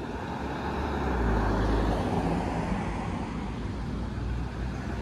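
Cars driving past close by over the reopened level crossing, tyre and engine noise swelling as one goes by about a second or two in.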